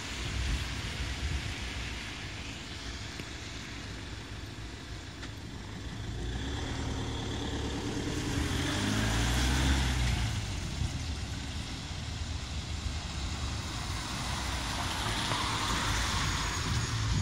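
Road traffic at a junction: a vehicle's engine note rises and falls as it pulls past, loudest about nine seconds in, over a steady low rumble. Near the end the hiss of tyres on the wet road swells.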